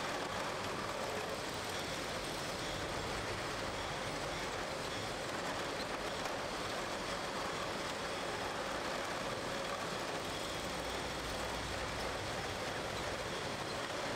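Steady machinery noise of a running bottling line: conveyors and machines making a continuous, even din.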